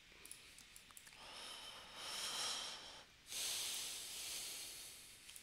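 A person breathing close to the microphone: a long breath in, then, after a brief pause, a louder breath out that slowly fades away.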